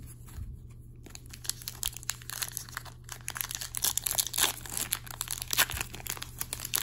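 Foil trading-card pack wrapper crinkling and being torn open by hand: rapid crackles that start about a second in and grow busier toward the middle.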